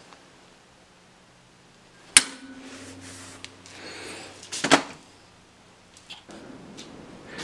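A hammer strikes a touchmark stamp on a steel nail header held in a vise, stamping the maker's mark. One sharp blow about two seconds in leaves the steel ringing, then there is a louder clatter of metal hits near five seconds.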